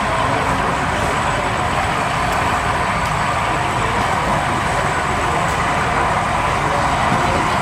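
OO gauge model train running on the layout, a steady mechanical rumble over the constant background hum of the hall.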